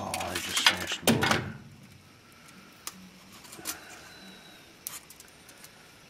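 Hands pulling a furnace control board off its sheet-metal mount: a second and a half of rattling and knocking, then a few faint scattered clicks.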